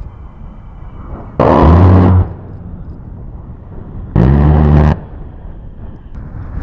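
A-10 Thunderbolt II's GAU-8/A Avenger 30 mm rotary cannon firing two bursts of under a second each, about three seconds apart: a deep buzzing 'brrrt' from the gun's very fast rate of fire. A steady rush of aircraft engine noise runs between the bursts.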